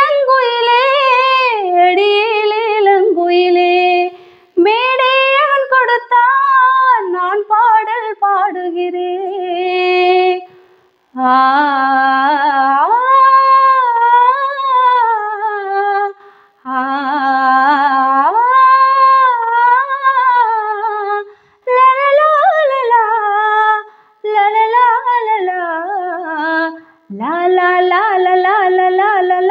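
A woman singing unaccompanied, long phrases that bend and waver in pitch, with short breaks for breath between them.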